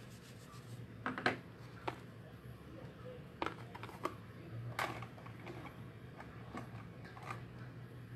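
Scattered soft taps and clicks of a makeup sponge dabbing white powder through a plastic stencil on skin, over a faint steady low hum.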